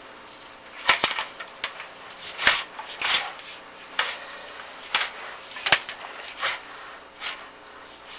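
Irregular sharp clicks and short scrapes, about ten spread over several seconds: the inspection camera and its cable knocking and rubbing against the flue liner and brick as they are fed down the chimney.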